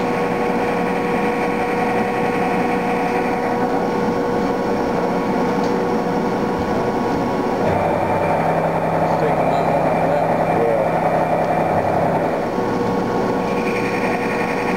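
Haas CNC mill cutting a metal block under flood coolant: steady spindle and cutting whine with the hiss of coolant spray. The tone shifts partway through, a lower hum joining for a few seconds, then the higher cutting note returns near the end.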